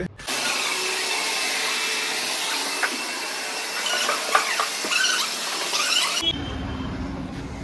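Vacuum cleaner running steadily while a car's interior is cleaned, a rushing hiss with a few faint squeaks, switching on just after the start and cutting off abruptly about six seconds in.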